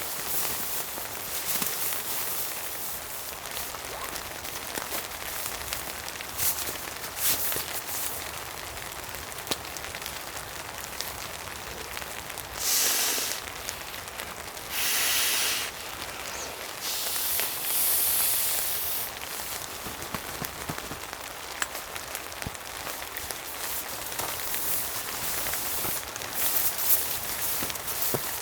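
Steady rain pattering on a camping shelter with scattered sharp ticks and crackles. Three louder hissing bursts, each a second or two long, come about halfway through.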